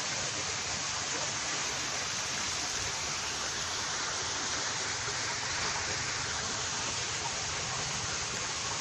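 A steady, even rushing noise like running or falling water, with no breaks or strokes.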